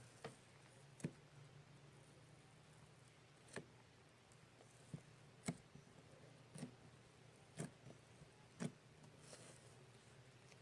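Homemade slime putty being stretched and pressed by hand: faint scattered clicks and small pops, about nine over ten seconds at irregular spacing, over a low steady room hum.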